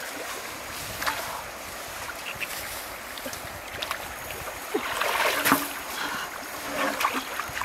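River water sloshing and splashing around a person wading and reaching into the grassy bank, in irregular swells, with the loudest splash about five and a half seconds in.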